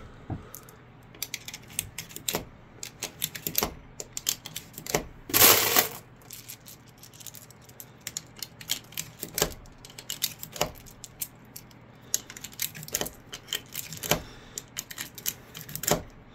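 UpLULA magazine loader working 9mm cartridges into a 15-round Glock magazine: a run of irregular clicks as the handle is squeezed and each round is slid in. A brief louder metallic clatter comes about five seconds in.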